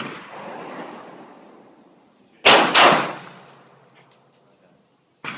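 Glock 19 9mm pistol shots, each with a long echoing tail: one at the start, two loud shots in quick succession about two and a half seconds in, and another near the end. A few faint light ticks follow the pair.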